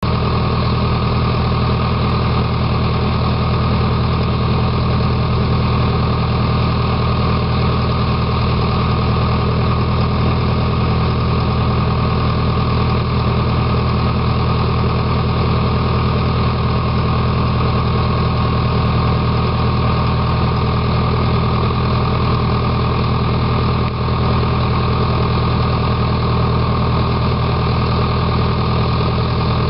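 Heavy machinery engine idling steadily: a loud, even low drone that holds one speed throughout.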